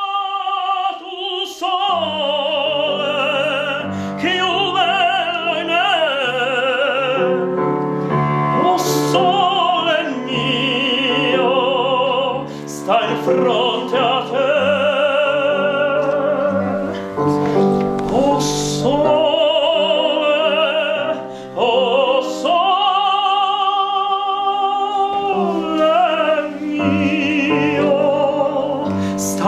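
Operatic tenor singing an aria in full voice with wide vibrato over a piano accompaniment, pausing briefly for breath between phrases.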